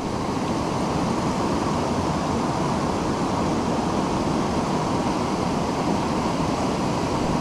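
Steady rushing of stream water pouring over a small waterfall into a pool, an even, unbroken noise.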